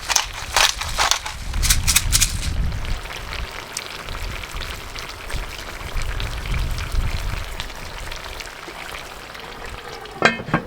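Food sizzling in a cast iron potjie, with a busy run of clattering and scraping in the first two seconds or so and a short clank near the end.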